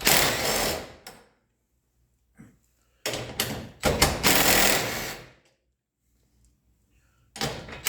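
Power drill with an 11 mm hex driver backing self-tapping screws out of a garage door lock mount, its motor whirring in three bursts. The second burst comes about three seconds in and the third near the end.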